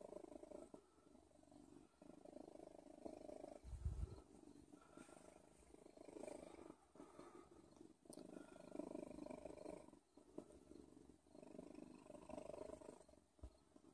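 Domestic cat purring close to the microphone, the purr swelling and fading in waves of about two seconds with each breath. A low thump about four seconds in.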